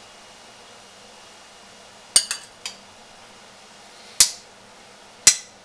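Metal spoon clinking against a ceramic plate: a quick group of three sharp clinks about two seconds in, then single clinks about four seconds in, about five seconds in and at the very end.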